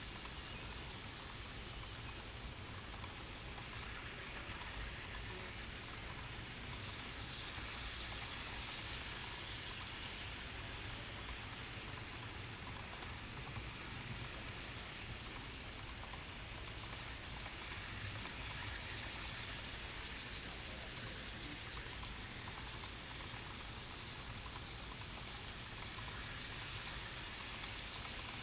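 Long model freight train rolling past close by: a steady rushing clatter of many small wheels on the track.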